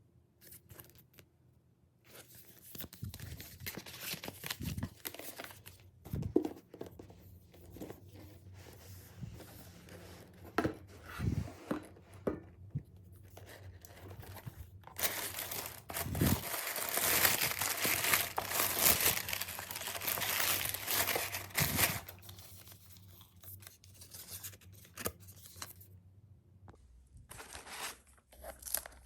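Paper packaging being unwrapped: tearing, rustling and crinkling, with a louder, denser stretch of tearing about halfway through.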